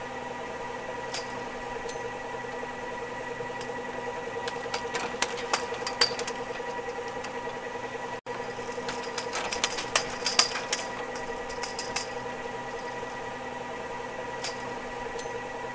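Ski lift running: a steady motor hum with sharp clicks and rattles from the lift, bunching together about five seconds in and again around ten seconds in. The sound drops out for an instant just past the middle.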